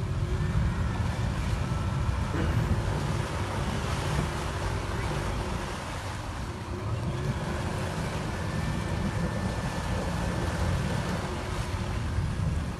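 An SUV's engine running as it wades through deep water up to its windows, with water churning around the body and wind noise on the microphone.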